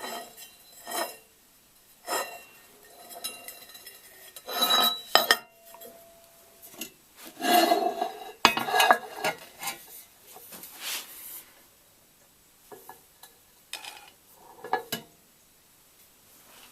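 Irregular metallic clinks and scraping from handling a stainless steel pipe while pickling paste is brushed onto its TIG welds, a few clinks ringing briefly.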